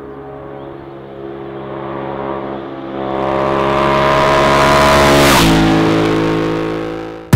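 Custom Ducati Scrambler 800 with its air-cooled L-twin engine approaching at speed, growing louder and climbing slightly in pitch. About five seconds in its pitch drops sharply as it passes, and it fades away.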